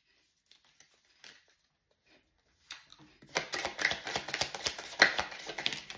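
Tarot deck being shuffled by hand: a few faint ticks, then, a little before halfway, a rapid run of dense card clicks that goes on to the end.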